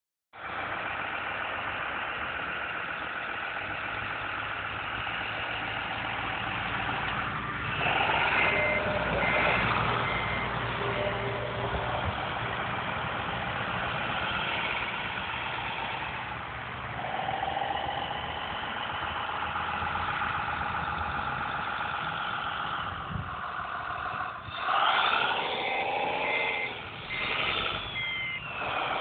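Sound module of an RC Komatsu wheel loader playing a diesel engine running, revving up about eight seconds in and again near the end. Each time a short run of reversing beeps sounds.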